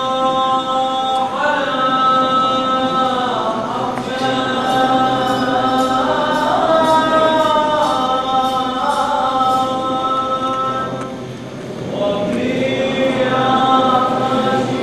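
Choir singing a slow Syriac Catholic Good Friday liturgical chant, with long held notes that step from pitch to pitch. The voices drop away briefly about eleven seconds in, then the singing resumes.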